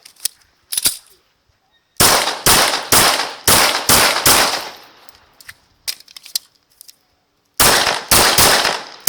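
Glock 34 9mm pistol fired in quick strings: about six sharp shots roughly half a second apart starting about two seconds in, a pause of about two and a half seconds with a few faint clicks for a magazine reload, then another rapid string of shots near the end.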